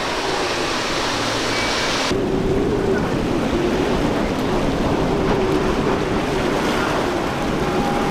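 Outboard-powered center-console boats running fast: rushing water and spray from the hull over the drone of the outboards. About two seconds in the sound changes abruptly to a deeper, heavier rush with a wavering engine hum.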